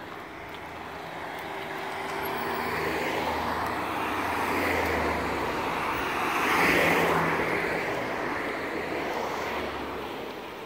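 A passing vehicle's engine and rushing noise, swelling slowly to a peak about two-thirds of the way through and then fading away.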